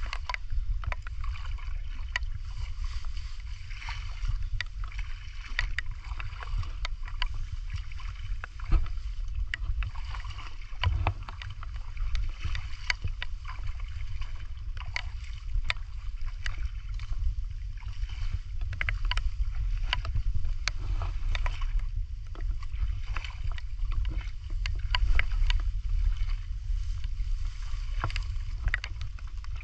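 Shallow muddy water splashing and sloshing as a person wades through it, with scattered small splashes and a steady low rumble underneath.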